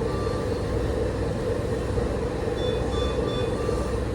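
Steady hum of bedside medical equipment, with an electronic tone that stops about half a second in and a run of three short, high electronic beeps about two-thirds of the way through, an equipment alarm or alert tone.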